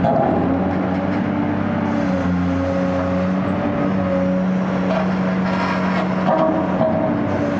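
Caterpillar 385C ultra-high-demolition excavator's C18 diesel engine running steadily under hydraulic load. Its pitch dips slightly about two seconds in and rises again a little past six seconds.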